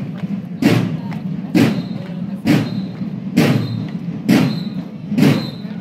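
Marching bass drum beating steady parade time, six even beats a little under a second apart.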